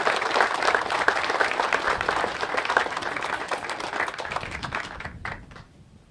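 Audience applauding: dense clapping that gradually thins and fades out, ending with a few last claps about five seconds in.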